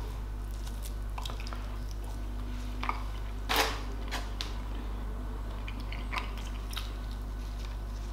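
A person chewing a bite of juicy smoked turkey breast: faint wet mouth sounds and small clicks, with one sharper click about three and a half seconds in, over a steady low hum.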